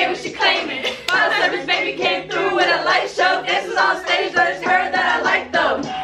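A group of young women singing along together, several voices overlapping.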